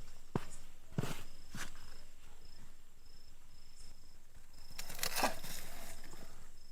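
A few sharp knocks and a rustling scrape as earth and the hot covering plate are cleared off an underground roasting pit. A high insect chirp repeats evenly throughout.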